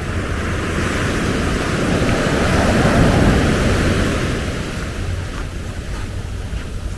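Ocean surf: a wave swells and washes in, loudest about three seconds in, then falls away. A steady low rumble of wind on the microphone runs beneath it.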